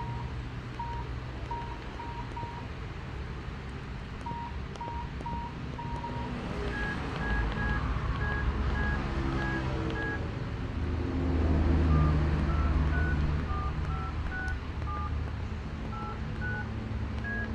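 Strawberry ST77 feature phone playing simple electronic beep ringtones: short tone pulses repeated at one pitch, then at a higher pitch about a third of the way in, then a short beeped tune of changing pitches in the second half. Low background noise runs underneath.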